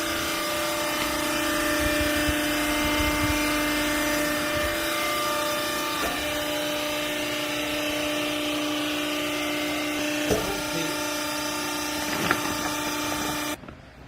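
Used-garment baler machine running: a steady mechanical hum with a whine over it, with a couple of light knocks, cutting off abruptly near the end.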